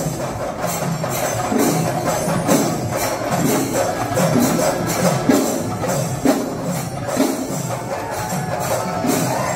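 Kerala temple-festival percussion ensemble (melam): drums with metal cymbals beating a steady, even rhythm.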